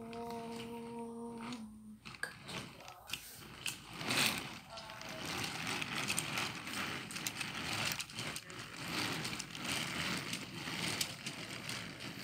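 A steady humming tone stops about two seconds in. A toy model train then runs past with a continuous clicking, rattling clatter from its wheels and motor.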